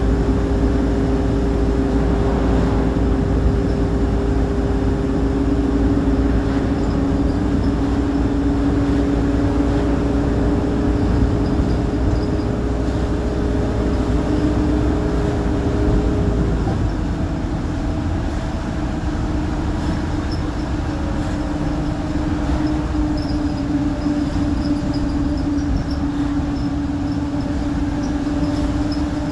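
Optare Solo M920 midibus heard from inside while driving: a steady engine and drivetrain drone with a whine over road rumble. Just past halfway the whine changes tone and the sound eases a little.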